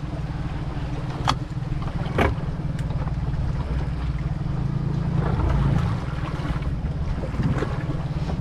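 An engine idling steadily with a low, evenly pulsing hum, with two sharp knocks a second or so apart in the first few seconds.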